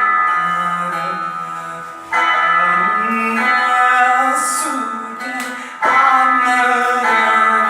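Veena being played: a few strongly plucked strokes that each ring out long, with a sliding bend in pitch in the middle.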